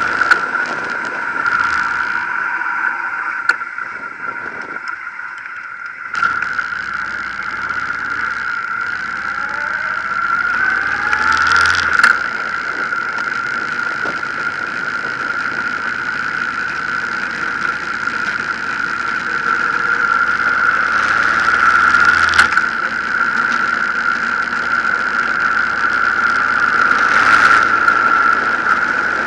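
Honda VTX 1800 V-twin motorcycle on the move, its engine mixed with wind and road noise, with a steady high whine throughout. The engine revs rise a little over ten seconds in, and there are short loud bursts of wind noise near the start of the second third and twice near the end.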